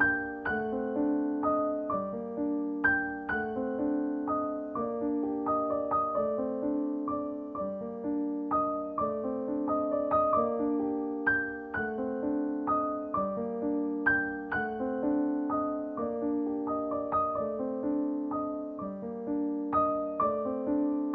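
Background piano music: a gentle, steady pattern of struck notes and chords.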